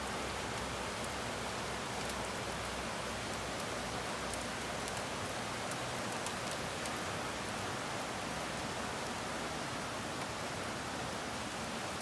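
Heavy summer rain pouring down steadily, with scattered sharp ticks of drops striking close by.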